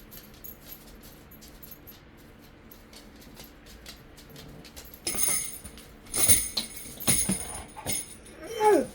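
A dog ringing the jingle bells hung on a door hook, her signal to be let outside: a few loud jangles from about halfway in, then a short whine falling in pitch near the end.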